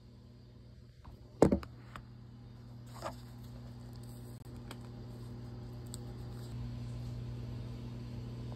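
A steady low electrical hum, with a loud knock about one and a half seconds in and a lighter clack around three seconds in.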